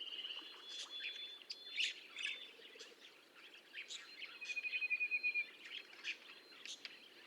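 Budgerigars chirping faintly: scattered short, high chirps with a longer trilled warble right at the start and another about four and a half seconds in.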